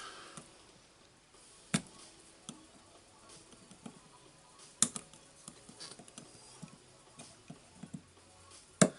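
Pliers clicking and slipping against a spring ring on a rotary hammer's clutch while trying to grip it: three sharp clicks spread out, with faint small ticks between.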